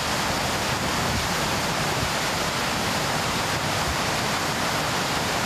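Steady rushing noise, even from low to high pitches and unbroken throughout.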